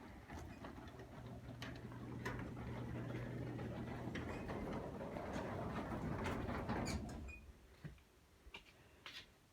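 Craftsman 3/4 horsepower belt-drive garage door opener running with a low hum as the door rolls up, with light clicking throughout. It gets louder, then stops abruptly about seven seconds in as the door reaches the open position.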